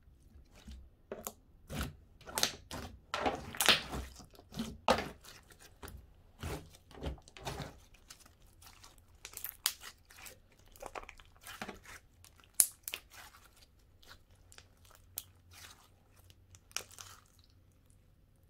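Hands squeezing and stretching a moist, gooey slime-like ooze, giving irregular sticky crackles and small pops. They come thick and loudest in the first half and thin out after.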